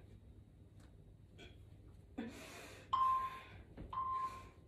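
Heavy breathing from a person doing sit-ups, a few sharp exhalations in the second half. Two short steady beeps about a second apart from a Tabata interval timer, counting down the last seconds of a work round.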